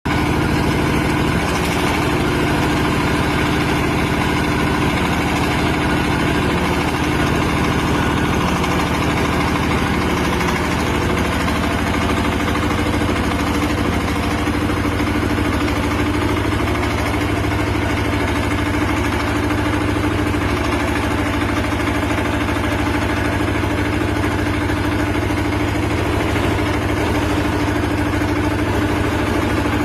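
700-litre concrete mixer running steadily on a test run, its engine giving a constant, even drone with no change in speed.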